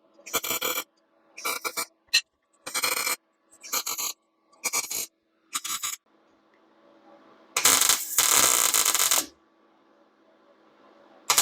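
Wire-feed welder arcing in short stitch welds on the thin steel of a bed frame's center support: about six half-second crackling bursts, then one longer bead of nearly two seconds, with a faint hum between. The welder is turned down low so the thin metal doesn't burn through.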